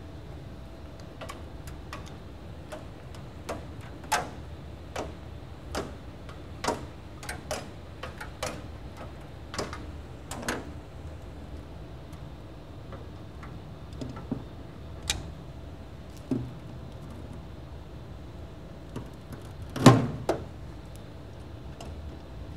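Diagonal cutters snipping, and metal parts and cables being handled inside an electronics cabinet: irregular sharp clicks and snaps, thicker in the first half, with a louder knock about 20 seconds in.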